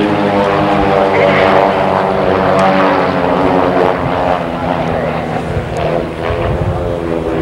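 Piston engines and propellers of two aerobatic biplanes flying in close formation, making a steady droning note. The pitch sinks slightly as they pass, and the sound fades somewhat as they pull up and climb away.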